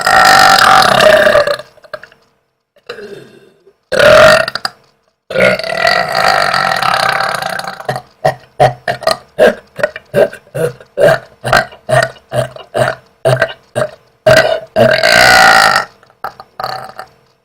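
A woman's loud, air-swallowed burps: several long, drawn-out belches, then a rapid run of short burps at about three a second, and one more long belch near the end.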